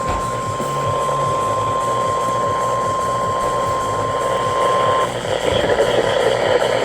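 NOAA Weather Radio 1050 Hz warning alarm tone, one steady pitch heard through a weather radio receiver with static and a pulsing hum underneath. The tone cuts off about five seconds in, leaving receiver hiss. It signals that a warning message follows.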